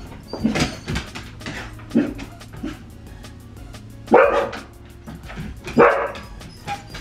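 Siberian huskies barking in a series of short barks, the two loudest about four and six seconds in, over background music.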